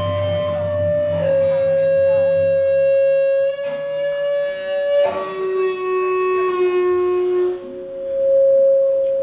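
Live music: a series of long held notes that step to new pitches a few times, over a low drone that fades out about three and a half seconds in.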